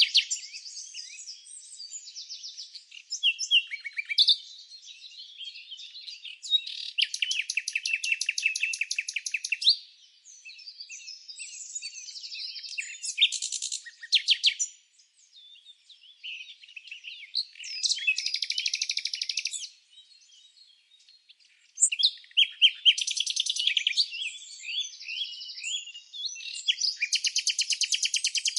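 Small songbirds chirping and singing, with bursts of rapid trilled notes a few seconds long between quicker chirps, and short lulls.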